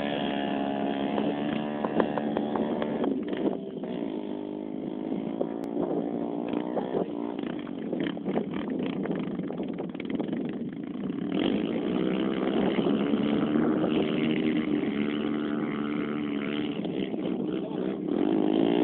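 Motorcycle engine running and revving, its pitch rising and falling over and over, getting a little louder about two-thirds of the way through.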